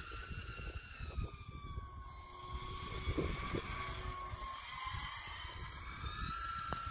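High whine of a radio-controlled model F-104 Starfighter's motor in flight, its pitch sliding slowly down and then rising again. Wind buffets the microphone underneath.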